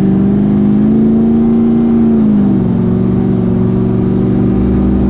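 Duramax 6.6-litre V8 turbodiesel pulling hard under full throttle, heard from inside the pickup's cab as it accelerates from about 50 mph. The engine note holds high and steady, dips slightly about two and a half seconds in, then holds again.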